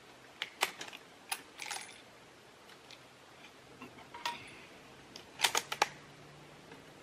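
Bolt of a Savage Model 116 .30-06 bolt-action rifle being worked by hand: a run of sharp metallic clicks about half a second in as the bolt is opened, and a second quick run of clicks near five and a half seconds as it is closed again.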